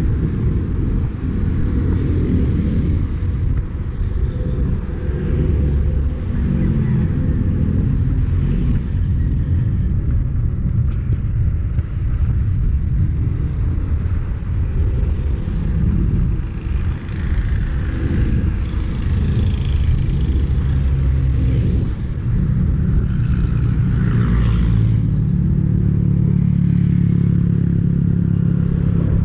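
Steady low wind rumble on the microphone of a handlebar-mounted camera on a moving bicycle, with motorcycle and car traffic passing on the road.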